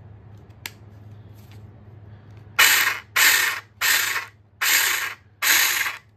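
Battery-powered 6-inch mini chainsaw run in five short trigger bursts, each a half-second rattling whir of the chain that fades as it coasts down. Before them comes a single click of the safety lock, under a second in.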